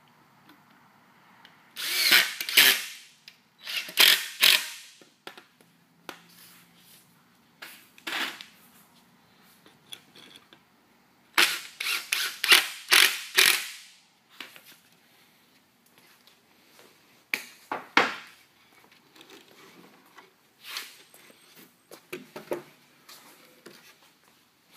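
Cordless drill driving screws into wooden boards in a series of short runs, each about a second long, with pauses between. A few lighter knocks of wood come near the end.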